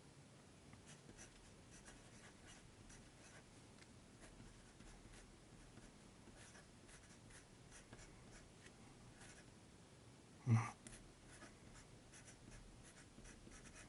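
Faint scratching and tapping of a 0.7 mm Kaweco Sport mechanical pencil's HB lead on paper as letters are written stroke by stroke, with a brief vocal sound about ten seconds in.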